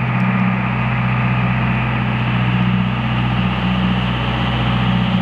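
Sportfishing boat's engines running at a steady speed, a constant low drone under a steady hiss of wind and water.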